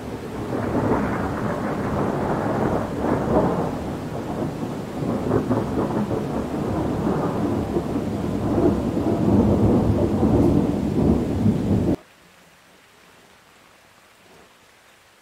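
Long rolling thunder from a thunderstorm, rumbling deep and loud and swelling and easing in waves for about twelve seconds, then cutting off suddenly.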